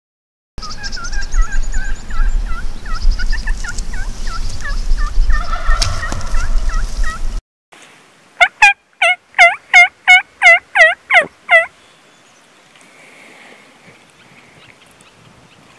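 Turkey yelps, most likely made on a mouth diaphragm call: a steady series of short scooped notes over heavy wind noise that cuts off abruptly. About a second later comes a louder, quicker run of about a dozen yelps.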